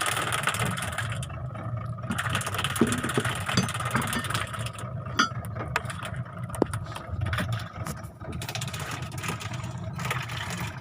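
Small fishing boat's motor running steadily under a hiss of wind and water, with a few light knocks.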